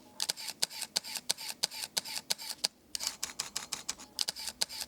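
Fujifilm GFX medium-format camera shutter firing in continuous bursts, sharp clicks at about eight a second. One run lasts about two and a half seconds, then there is a short break and a second run.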